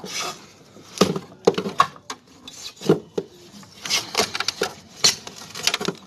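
Irregular small clicks, knocks and scraping as loosened mounting nuts are worked off the deep-freezer compressor's base by hand.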